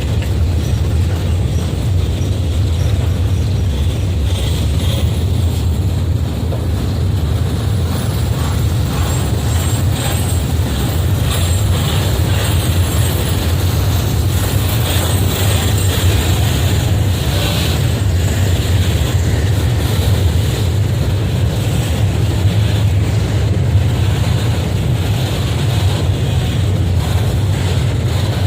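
Train passing: a steady low rumble with scattered clacks from the wheels.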